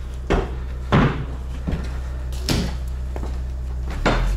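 Footsteps thudding on the worn plank floor of a truck semi-trailer, about five heavy steps. The boards are worn out and need re-laying. A steady low hum runs underneath.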